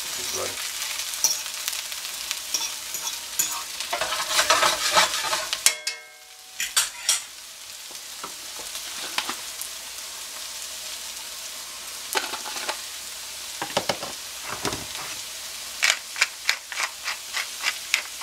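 Diced potatoes and onions sizzling in melted butter in a stainless steel skillet, with a utensil scraping and clicking against the pan as they are stirred. Near the end comes a quick run of sharp clicks from a pepper mill grinding over the pan.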